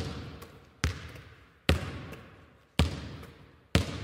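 A basketball bouncing on a hard court about once a second, five bounces in all, each hit sharp and echoing as it dies away.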